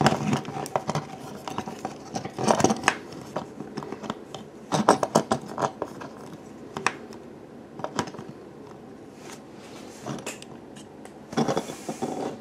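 Plastic Transformers action figure being handled and posed: scattered clicks, scrapes and rattles of its joints and parts under the fingers. Near the end comes a short cluster of scrapes and knocks as it is stood on the desk.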